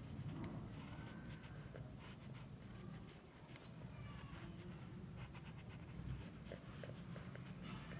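Pencil scratching across paper in short, irregular strokes as lines are sketched; faint.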